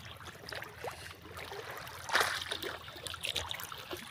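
Shallow muddy water sloshing and splashing as someone wades through it, with one louder splash about two seconds in.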